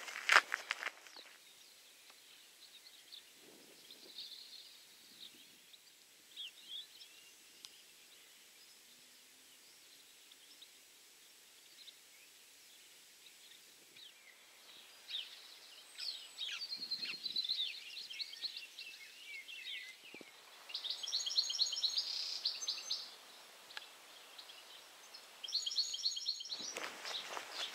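Birds singing in open farmland: scattered high chirps, then two spells of fast repeated high notes in the second half.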